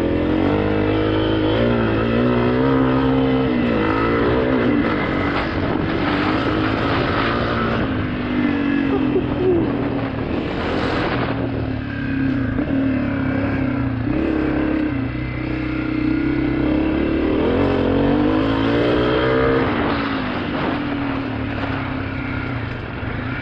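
2023 Honda CRF250F's four-stroke single-cylinder engine running under a rider on a trail, its pitch climbing and falling several times as the throttle is worked. A brief rush of noise comes about ten seconds in.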